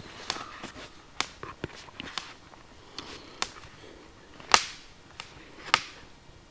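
Wood fire crackling in a steel fire pit: irregular sharp pops and snaps, a few of them loud, over a faint hiss.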